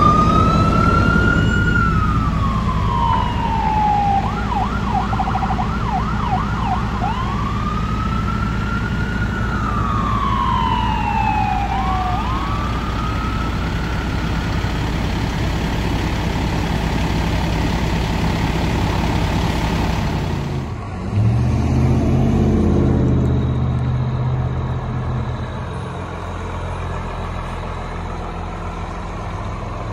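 Fire truck siren wailing, switching for a few seconds to a fast yelp and back to a wail, then fading away about 14 seconds in over the steady rumble of a heavy truck engine. About 21 seconds in there is an abrupt change to a truck engine revving briefly and then running steadily.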